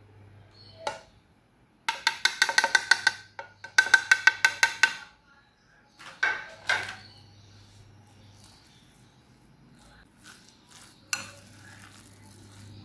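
A metal spoon clinking against a glass mixing bowl and a ceramic dish: two quick runs of ringing taps, about six a second, then two single clinks and lighter scraping and knocking as the mixture is stirred.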